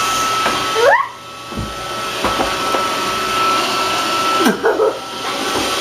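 Roomba robot vacuum running, a steady whirring hum with a thin high whine. A brief rising sound cuts across it about a second in, and another short sound near the end.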